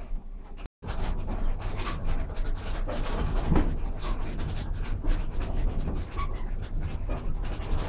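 Wipmolen drainage mill running at an easy pace, heard from inside the room at its base: a steady low rumble with irregular knocking and swishing from the turning machinery, broken by a brief dropout near the start.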